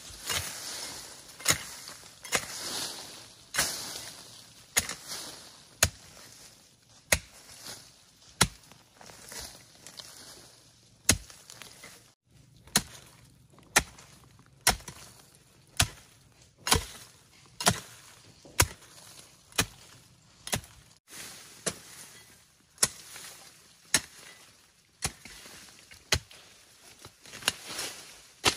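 Long-handled hoe chopping into forest soil, steady strokes about once a second, each a sharp thud with loose earth scattering after it.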